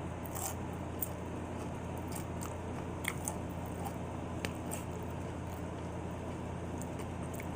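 A person chewing chili cheese nachos, with a few scattered crisp crunches of tortilla chip, over a steady low hum.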